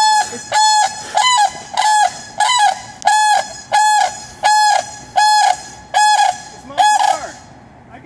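Sandhill crane calling loudly over and over, about a dozen short calls at an even pace of roughly one and a half a second. The calling stops shortly before the end.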